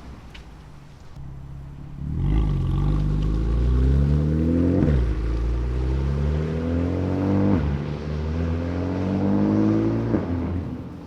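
BMW F80 M3's S55 twin-turbo inline-six, breathing through a titanium equal-length, single-midpipe valved exhaust, accelerating hard. After about two seconds of low running, the engine note climbs three times, each climb cut by a sharp drop in pitch at an upshift. It falls away near the end as the throttle closes.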